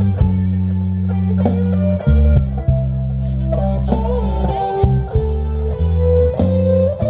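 Live amplified band music: an electric guitar plays a melodic lead with bent notes about halfway through, over low, sustained bass notes.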